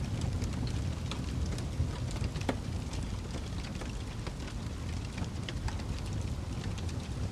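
Wood fire burning: a steady low roar under scattered crackles and pops, with a couple of louder pops about two seconds in.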